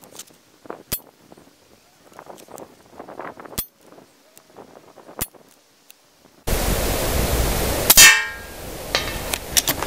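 One sharp air rifle report with a short ringing tail about eight seconds in, fired while the rifle is being sighted in. Strong wind noise on the microphone comes in suddenly a second and a half before it.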